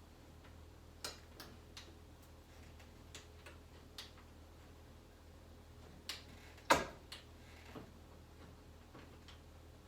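Irregular metallic clicks and knocks from hand tools working on the door-hinge bolts, the loudest a sharp knock a little past halfway, over a faint low hum.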